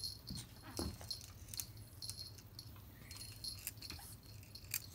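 A kitten playing with a feather-wand cat toy: light jingles and ticks from the toy being batted about, with one brief kitten call under a second in.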